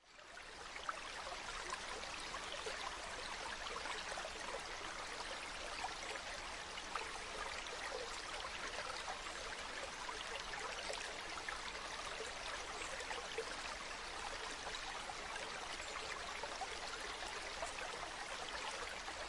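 A steady rushing hiss with fine crackling all through it, cutting in suddenly at the start.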